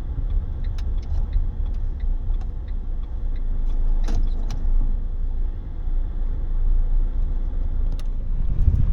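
Car on the move: a steady low rumble of engine and road noise, with a few light clicks.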